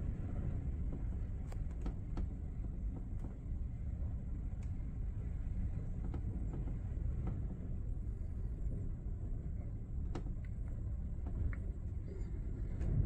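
Steady low rumble of the hurricane wind and heavy sea heard through the closed glass balcony door of a ship's cabin, with a few faint clicks scattered through it.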